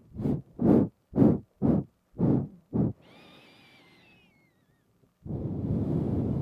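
Quick nasal sniffs and breaths right up against a binaural microphone, six short ones about two a second. Then comes a faint high whistle falling in pitch. A long, steady breath out starts about five seconds in.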